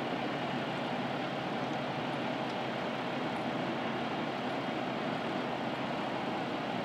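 Steady, unbroken drone of idling vehicle engines.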